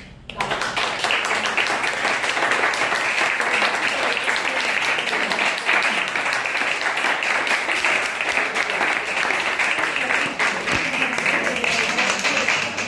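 A small audience applauding: dense clapping from a dozen or so people that starts suddenly about half a second in and keeps up steadily.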